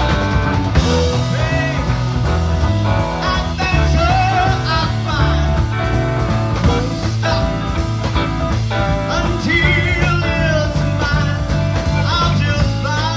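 Progressive rock band playing, with melody lines bending in pitch over steady bass and drums; a 1975 reel-to-reel recording.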